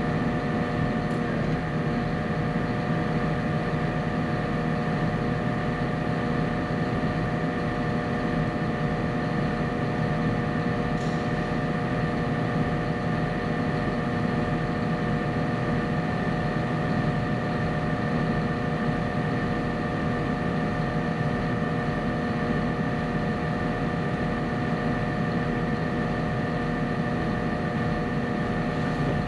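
Wheel loader's diesel engine running at a steady speed: a constant hum with several held tones over a low rumble.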